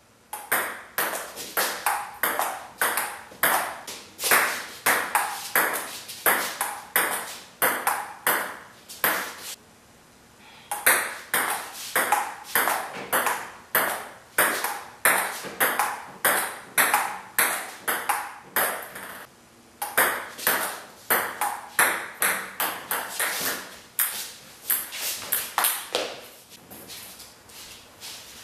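Table-tennis rallies: a celluloid ping-pong ball clicking off rubber paddles and bouncing on a STIGA table, in a quick, even run of sharp clicks. The clicks break off twice as points end, about a third and two-thirds of the way in, and grow fainter near the end.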